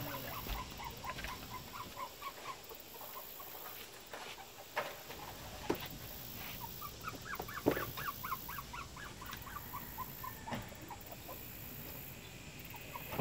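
Two runs of quick, short squeaky chirps from an animal, the second rising and then falling in pitch, with a few sharp clicks from a clamp lamp being handled.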